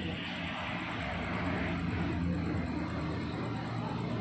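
A motor vehicle going by on a road: a steady engine-and-tyre rumble that swells about a second in and holds.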